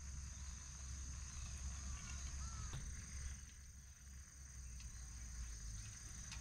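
Outdoor ambience: a steady high-pitched insect trill over a low rumble, with a single faint chirp about two seconds in.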